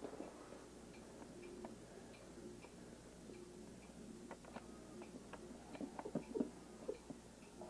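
Faint regular ticking in a quiet room, with a few soft knocks and rustles of hands moving bedding about six seconds in.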